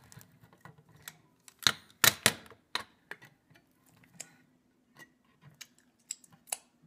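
Handheld crank can opener working around the rim of a metal can: a run of irregular metallic clicks and clacks, loudest about two seconds in.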